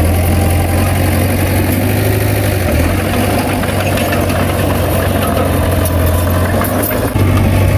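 Heavy diesel engine of earthmoving machinery running steadily with a deep hum, its pitch shifting slightly about seven seconds in.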